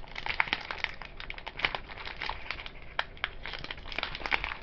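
Foil trading-card booster pack wrapper crinkling, with many small irregular crackles, as fingers carefully work it open.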